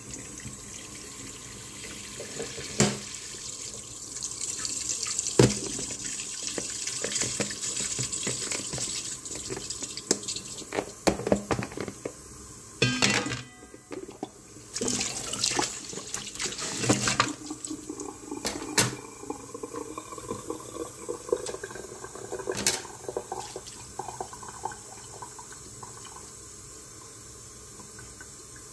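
Kitchen tap running into a stainless steel bowl in the sink, with splashing and a string of sharp knocks, most of them in the middle.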